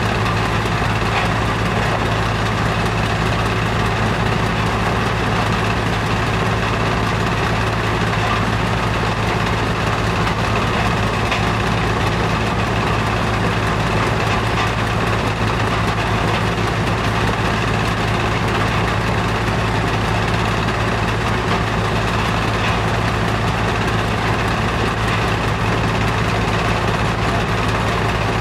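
Heavy diesel machinery running steadily: a constant low engine hum over a mechanical rumble, unchanging throughout.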